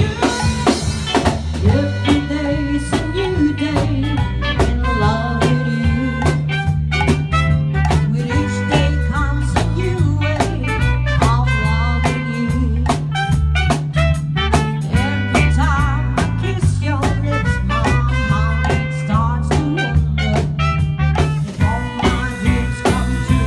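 Live band playing an upbeat song on electric guitars, bass, drum kit and trumpet, with a steady drum beat under the melody.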